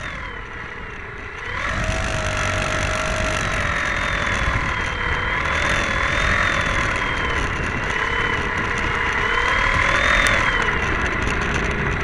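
Brushless electric motor and propeller of a Great Planes Eagle 580 RC plane (RimFire 42-50-100 outrunner) running at part throttle: a steady whine that wavers in pitch. It starts low and comes up about a second and a half in.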